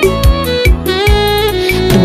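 Instrumental passage of an arrocha/seresta song: a sustained melody line over a steady drum beat, with no singing.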